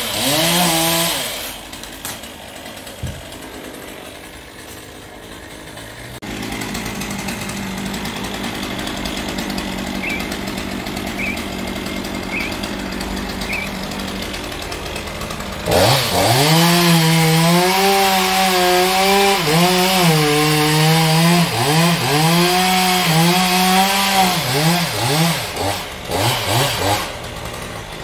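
Petrol chainsaw revving briefly, then idling steadily, then from about halfway running at full throttle as it cuts into the base of a conifer, its pitch dipping again and again as the chain bogs in the wood and recovers.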